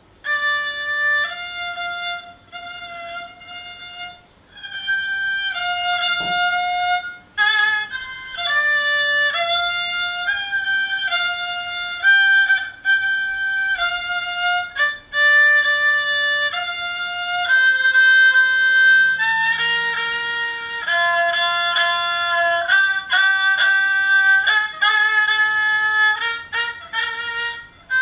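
Thai so (bowed fiddle) playing the main melody of a Thai classical piece in the G (phiang lang) scale, a single line of held and stepping notes.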